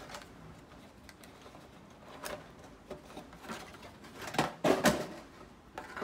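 Cardboard box and packaging being handled as a CPU cooler is taken out of it: scattered light clicks and rustles, with the loudest rustling scrapes about four and a half to five seconds in.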